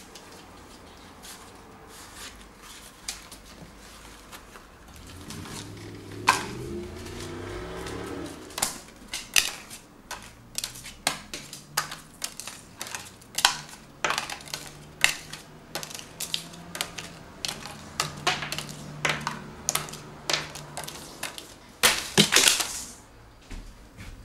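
Playing cards being shuffled and slapped down on a wooden tabletop: an irregular run of sharp snaps and clicks, denser after the first third. A low steady hum lies under parts of it.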